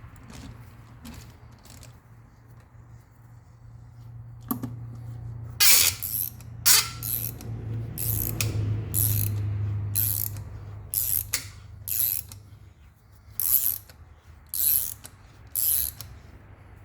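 Hand ratchet wrench clicking in short spells, one spell roughly every second, as it is swung back and forth on a lug nut. A steady low hum runs underneath.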